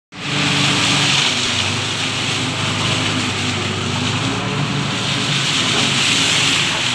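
Concrete mixer truck's engine running steadily with a constant hiss over it.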